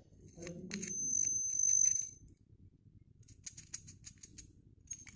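Small loudspeaker of a homemade LM386 microphone amplifier giving a high steady whistle with crackle as an object is held against its electret microphone. About three seconds in comes a quick run of faint rattling clicks.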